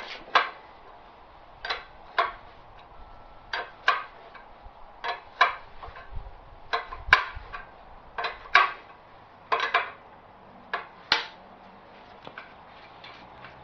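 Hand wrench clinking against the nuts and bolts holding a wood splitter's hydraulic cylinder as it is worked loose: short sharp metal clinks, mostly in pairs, about every second and a half.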